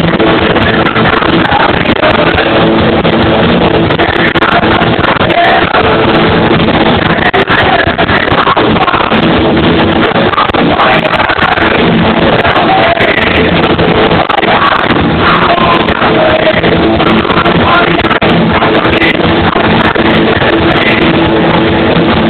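Live rock band playing loud and steady: electric guitars, drums and sung vocals.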